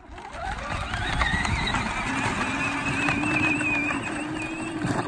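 A children's ride-on princess-carriage toy rolling over a gravel driveway: its plastic wheels crunch over the gravel under a steady whine.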